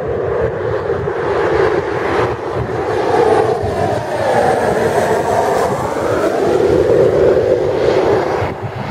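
A Pilatus PC-12's single turboprop drones loudly as the plane passes low overhead on approach, its tone sweeping down and back up mid-pass. The sound drops off abruptly near the end.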